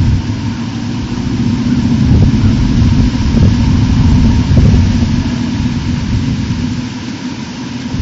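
Wind buffeting an outdoor nest-camera microphone: a loud, uneven low rumble that swells and dips, with a faint steady hum underneath.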